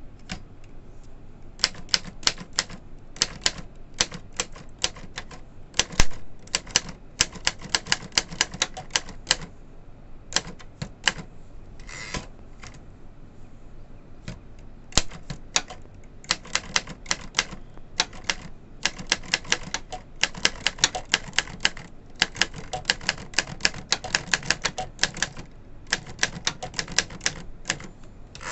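Torpedo Classic typewriter being typed on: key strikes in quick runs separated by short pauses, with one especially loud strike about six seconds in.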